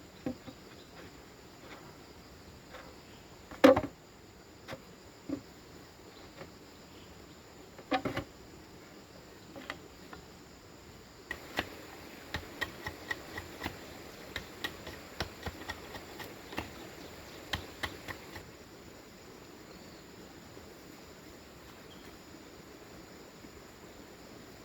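Hand work on bamboo: scattered knocks and clicks, the loudest about four seconds in. Then a quick run of sharp taps, two or three a second, that stops about seven seconds later and leaves only a faint hiss.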